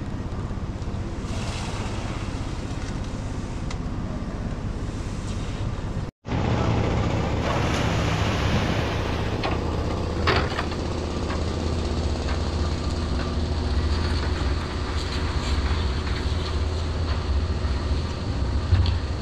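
Construction machinery running with a steady low drone while concrete is being placed on a roof. The sound cuts out briefly about six seconds in and comes back louder, with a sharp clank about ten seconds in.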